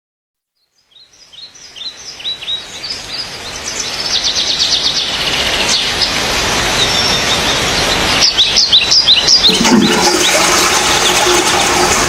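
Birds chirping in quick runs of short falling notes over a rushing noise that grows steadily louder.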